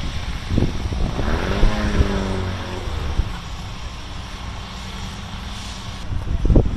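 An engine passes by, its drone falling in pitch over about two seconds as it goes.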